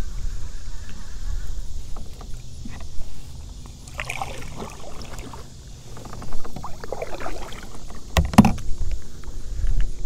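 Kayak paddle strokes, the blade splashing through the water twice, with two sharp knocks about eight seconds in.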